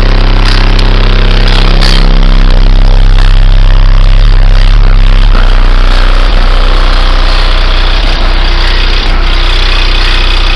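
Two car-audio subwoofers in an SPL bass-race car playing a very loud, steady deep bass tone, so strong that it distorts on the microphone.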